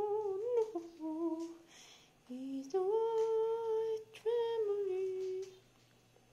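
A high voice humming a simple tune in four held notes, the last fading out about five and a half seconds in.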